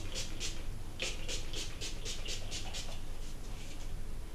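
Pump spray bottle of dry oil spritzing rapidly onto hair, a quick string of short hissing sprays, about four a second.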